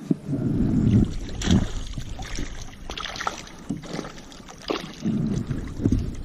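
A small bass being reeled in beside a kayak: a spinning reel cranking and the fish splashing at the surface, with several sharp knocks and uneven rumble from handling and wind on the camera microphone.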